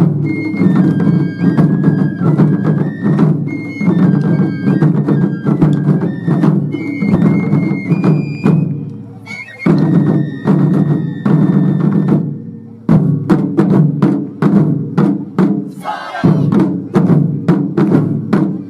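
Japanese taiko drum ensemble playing fast, dense strikes, with a high melody of held notes over the drums. The playing breaks off briefly about nine seconds in and again about twelve and a half seconds in, then resumes.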